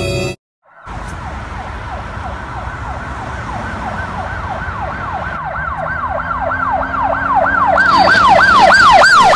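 Emergency vehicle siren in a fast yelp, its pitch sweeping up and down about three times a second and growing steadily louder. It starts about a second in, after a brief silence.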